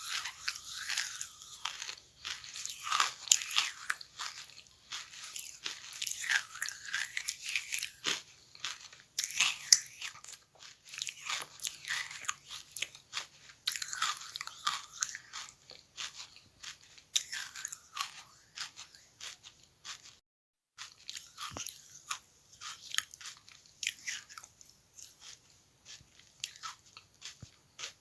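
Close-up crunching and chewing of charcoal: dense crisp cracks and crackles as the pieces are bitten and ground between the teeth, broken by a sudden half-second gap about twenty seconds in.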